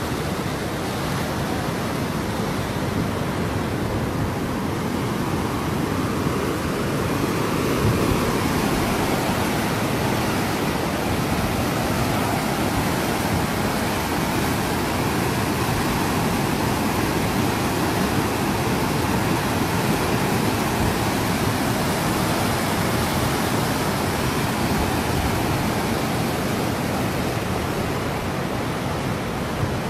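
Steady rushing noise of a swollen, fast-flowing river in flood.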